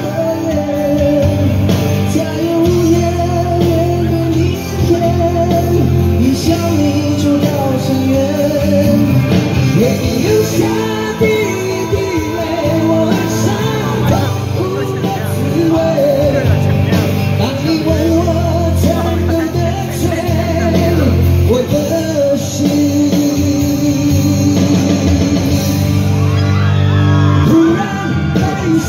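Live rock ballad played loud through a concert PA: a band with a male voice singing long, held melody lines over a steady bass.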